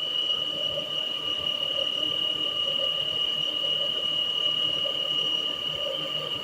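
Peugeot 408 engine running with a steady, high-pitched squeal that doesn't waver. It sounds like a worn pulley bearing, but the mechanic traces it to the valve cover.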